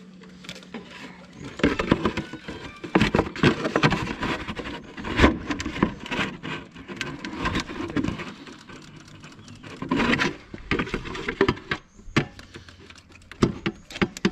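Hand priming lever on a Fiat 480 tractor's diesel fuel lift pump being worked, giving irregular metallic clacks and knocks in bunches with short pauses between them. It is pumping fuel through a new filter to bleed air out of the fuel system.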